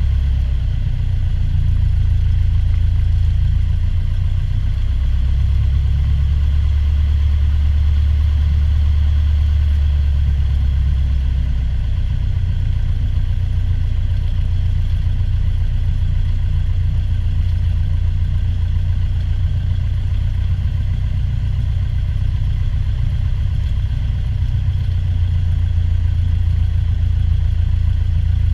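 Single-engine propeller airplane's piston engine and propeller running at low taxi power, a steady low drone that shifts slightly in pitch a few times.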